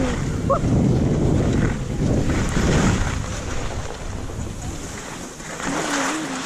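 Wind buffeting the microphone and skis hissing and scraping over snow on a downhill run, with a short wavering tone near the end.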